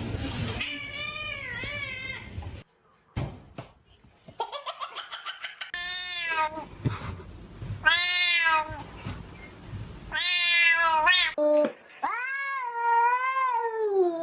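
Domestic cat meowing, about five separate meows that rise and fall in pitch, the last one long and drawn out.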